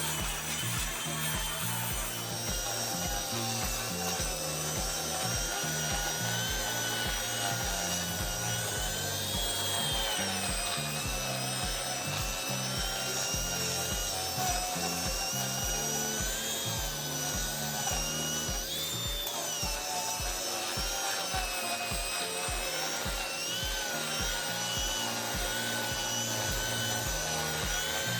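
A concrete grinder running, its whine wavering and dipping now and then as the load changes, over background music with a steady beat.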